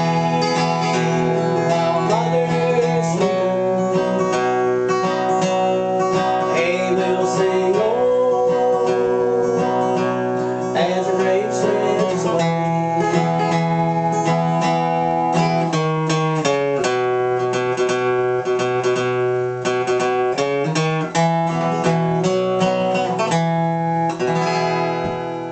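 Steel-string acoustic guitar strummed in a country-bluegrass rhythm, with runs of single notes between the chord changes.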